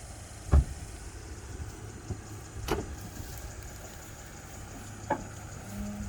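Jeep engine running at a steady low idle, with three sharp knocks over it, the first one the loudest.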